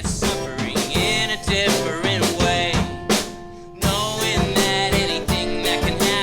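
Background music with a drum kit keeping a steady beat and what sounds like singing over it, briefly dropping out a little past halfway before the beat comes back.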